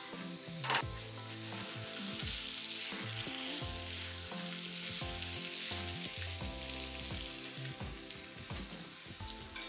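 Chicken masala sizzling in hot oil in a nonstick kadai while a spatula stirs it, a steady frying hiss. There is a brief, louder scrape just under a second in.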